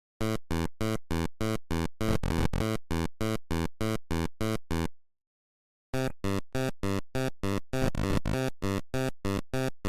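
Electronic background music: a quick run of short, evenly spaced notes, about four a second. It breaks off about halfway and starts again about a second later.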